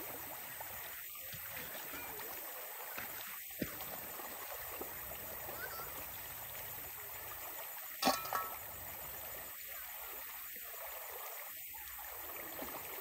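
Shallow river running over gravel, a steady rushing of water. About eight seconds in there is a sharp knock, followed quickly by a smaller one.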